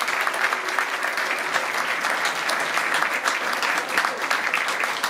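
Concert audience applauding, a dense steady clapping of many hands.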